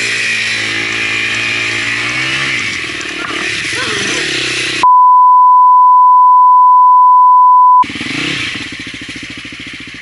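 Enduro dirt bike engine running, its pitch dropping as the revs come down, then cut off by a loud steady electronic beep lasting about three seconds. The engine sound returns after the beep and fades out near the end.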